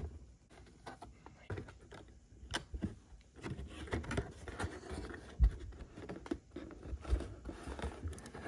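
Cardboard display box being handled and its end flap pried open: scraping, rustling and small clicks of cardboard, with one sharp thump about five and a half seconds in.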